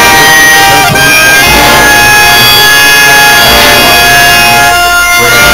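Street band led by clarinets playing a Holy Week procession march in long held notes, very loud and close to the microphone.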